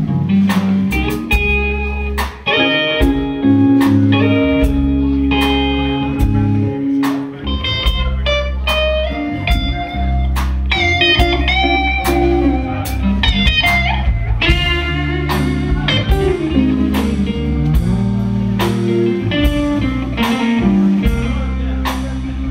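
A blues band playing live: an electric guitar plays a lead melody of single-note runs over bass guitar, rhythm guitar and drums with cymbal strokes.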